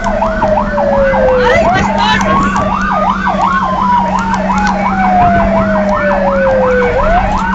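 Fire engine sirens sounding together, heard from inside the cab. A rapid yelp cycles without a break over a slow wail that falls for several seconds, then sweeps back up about a second and a half in and again near the end. A steady low drone runs underneath.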